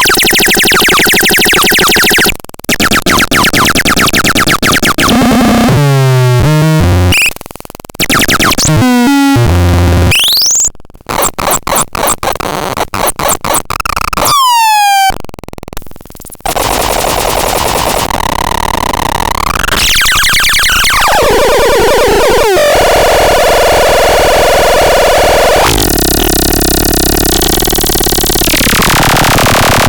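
Electronic synthesizer making loud, harsh, noisy tones that change every few seconds. There are buzzing drones, pitch glides up and down, and a stretch of rapid stuttering pulses with short gaps around the middle. Long falling sweeps and a wash of noise follow near the end.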